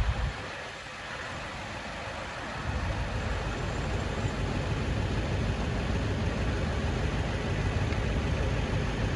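A large vehicle's engine idling with a low, steady rumble. It drops away briefly near the start and comes back about three seconds in.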